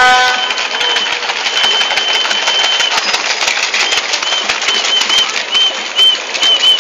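Protest crowd noise with a whistle being blown: one long blast, then a run of short chirping blasts, about two a second, over many sharp clicks. A held horn note cuts off right at the start.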